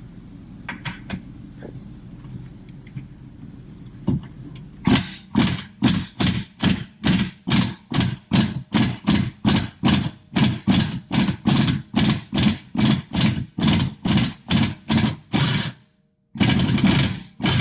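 A power wrench loosening a 14 mm suspension bolt, pulsed in short bursts about three a second for some ten seconds, then run once for about a second near the end as the bolt comes loose.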